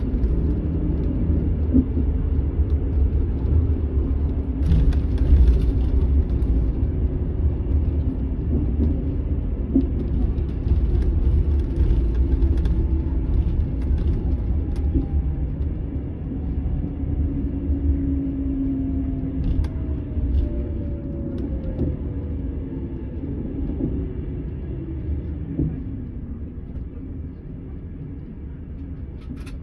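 Setra S 431 DT double-decker bus's diesel engine idling at a standstill with a steady deep rumble. A faint whine slowly falls in pitch through the second half, and the rumble grows quieter near the end.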